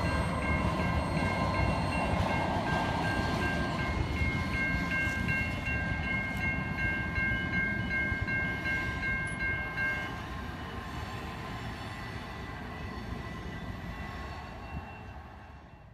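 Canadian National freight train's wheels squealing on a sharp curve, a high steady whine with several pitches, over the rumble of tank cars rolling by. The squeal stops about ten seconds in and the rumble fades away.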